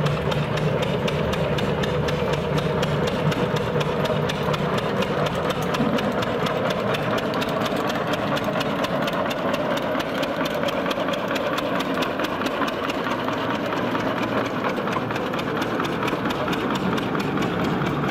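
Small narrow-gauge internal-combustion locomotive engine running steadily with a rapid, even exhaust beat as it hauls a rake of steel skip wagons past at walking pace.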